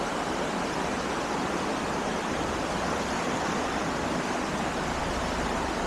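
Fast mountain-stream rapids rushing steadily, an even, continuous water noise.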